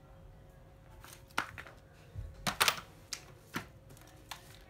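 Clicks and knocks of a plastic cordless drill being handled and lifted off a cardboard-covered table, a few separate sharp knocks with a louder clatter about two and a half seconds in. The drill's motor is not running.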